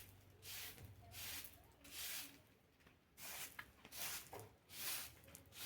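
Floor being scrubbed: repeated short swishing strokes, about one a second.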